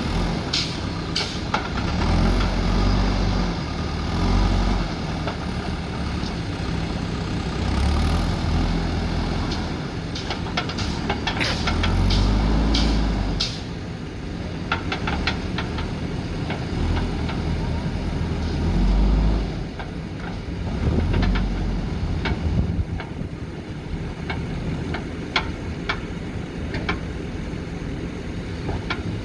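Diesel engines of JCB backhoe loaders working, revving up and falling back several times under load. Scattered metallic clanks and knocks come through, in clusters around the middle and near the end.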